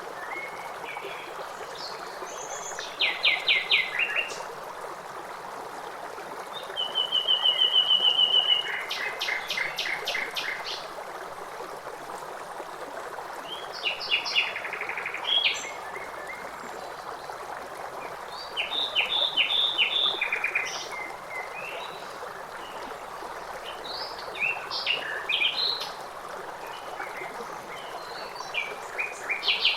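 Songbirds singing in short phrases of quick repeated notes, coming every few seconds, over the steady rush of running stream water.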